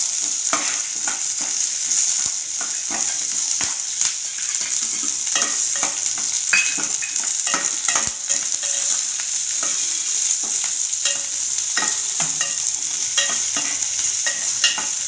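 Whole shallots and garlic cloves frying in hot oil in an aluminium pot, with a steady sizzle. Frequent short clicks and scrapes come from a metal ladle stirring them against the pot.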